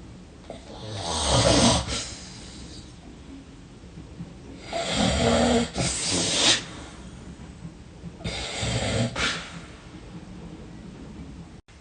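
A person snoring heavily: three deep snores about three and a half seconds apart, the first the loudest.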